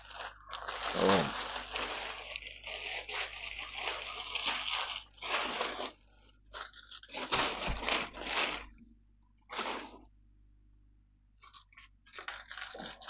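Plastic mailer bag crinkling and rustling in bursts as it is handled and opened, thinning to a few light rustles in the last few seconds.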